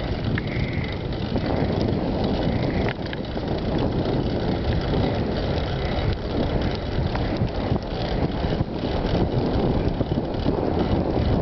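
Wind buffeting the microphone over the rolling rumble of a bicycle being ridden: a steady rushing noise, heaviest in the low end, with a few light clicks and rattles.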